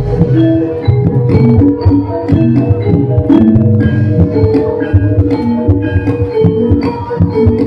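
Javanese gamelan playing jathilan dance music: metal mallet instruments ring out quick struck notes over steady drum beats.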